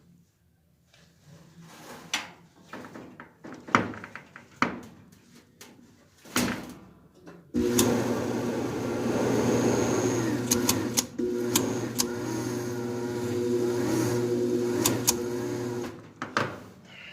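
Clicks and knocks of handling, then about halfway through the dryer's drive motor, belt removed, is switched on and gives a loud steady electric hum for about eight seconds before cutting off. The owner takes the motor to be corroded and gummed up from flooding.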